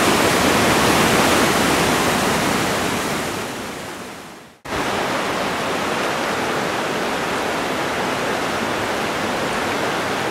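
Steady hiss of rushing stream water. It fades away about four and a half seconds in, then comes back abruptly and holds steady.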